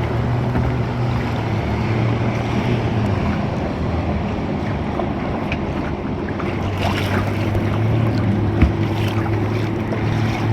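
Wind buffeting the microphone and water noise on the river from a kayak, with a low steady hum underneath and scattered small ticks in the second half.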